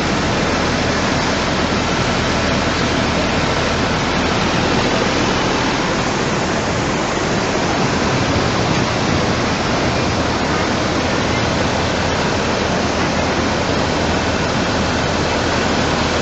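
Rushing floodwater, a loud, steady roar of fast-flowing water with no breaks.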